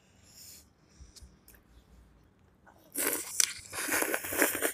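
Bites into a raw cucumber spear and crunches it while chewing close to the microphone, starting about three seconds in. The crunching is loud.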